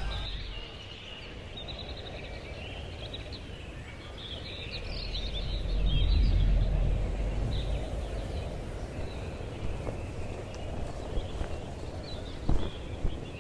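Birds chirping over a low rumble that swells about five to seven seconds in, with a couple of sharp knocks near the end.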